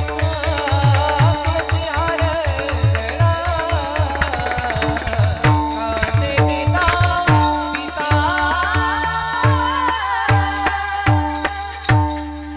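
Devotional kirtan music: a melody over a held drone note, with deep hand-drum strokes that drop in pitch and bright cymbal strikes in a steady rhythm. It ends with a final drum stroke about twelve seconds in and fades away.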